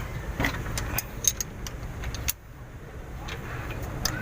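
Scattered metallic clicks and taps of a wrench and flat screwdriver working a rocker-arm valve adjusting screw and locknut on an Isuzu 12PE1 diesel, with the engine stopped for valve clearance adjustment, over a low steady background rumble.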